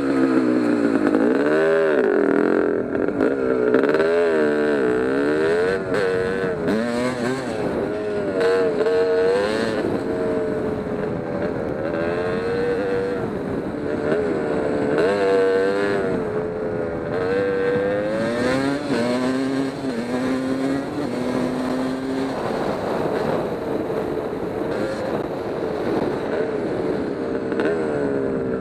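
Kawasaki KX250 two-stroke single-cylinder dirt bike engine being ridden, its pitch rising and falling again and again as the throttle is opened and closed.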